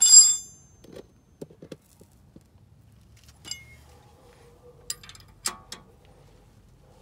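Steel open-end wrenches clinking against each other and the caliper bolt as two wrenches are hooked together for leverage. A loud ringing clink at the start, then scattered light knocks and a few sharper clinks later on.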